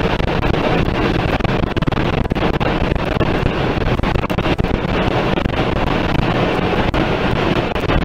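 Tornado wind blasting the microphone, a loud, dense rushing roar with scattered sharp knocks of debris or hail striking nearby.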